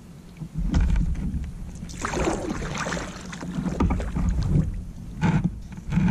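Kayak paddle strokes: a double-bladed paddle dipping and splashing in the water in several uneven strokes.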